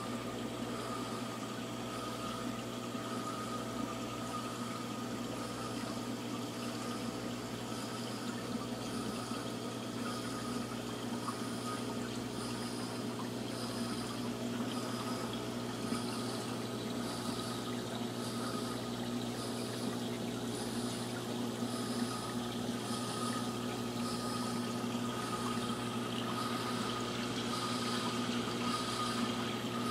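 Aquarium pump humming steadily under the even rush and trickle of circulating water, with a faint regular pulsing in the background.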